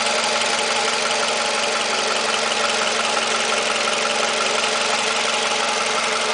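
Toyota 2AZ-FE 2.4-litre four-cylinder engine idling steadily, with a fast light ticking over the running sound; the owner is chasing a knock he places in the area of the starter.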